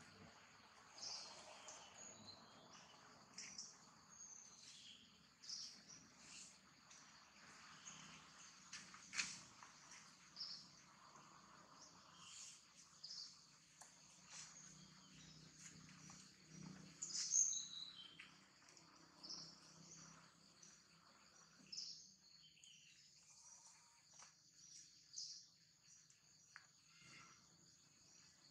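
Quiet outdoor ambience: a steady high insect drone with many short, high bird chirps over it, one louder chirp a little over halfway through.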